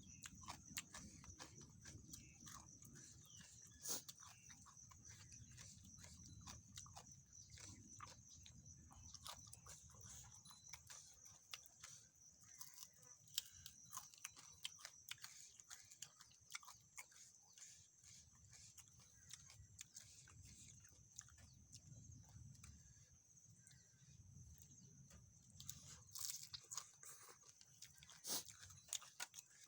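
Close-up eating sounds of someone chewing spicy seafood papaya salad and fried fish: quiet mouth noises with many scattered small clicks and smacks. A faint steady high-pitched whine runs underneath.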